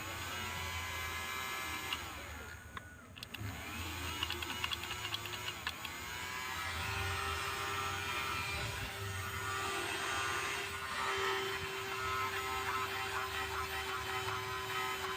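Small electric motor whirring. It spins up several times in the first few seconds, its pitch rising each time, then runs at a steady speed with an even whine.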